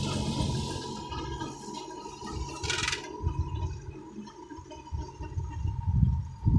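John Deere 2120 tractor's four-cylinder diesel engine running as it pulls a PZ 165 rotary mower cutting grass, growing fainter after the first second as it moves away, with a steady high tone throughout. A rushing rumble in the low end builds near the end.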